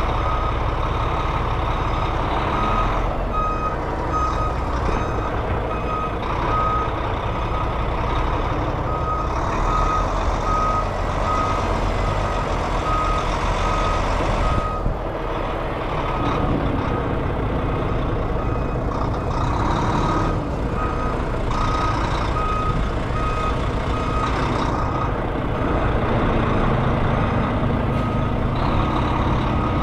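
Semi-truck's diesel engine running at low speed while the rig manoeuvres, with a back-up alarm beeping about twice a second in two long stretches.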